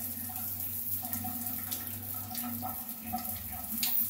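Shower running: a steady spray of water through a newly fitted pressure-type shower valve, with the new valve working.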